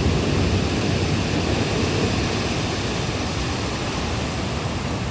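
Sea surf washing on the shore, a steady rushing noise mixed with wind buffeting the microphone.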